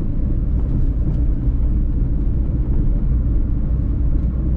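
Steady engine and road rumble heard inside the cabin of a small van driving along a highway.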